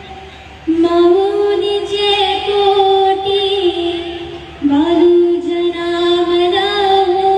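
A woman singing a traditional Agri-Koli dhavla wedding song in long, drawn-out held notes with a wavering pitch. One phrase begins about a second in and a second begins about halfway through.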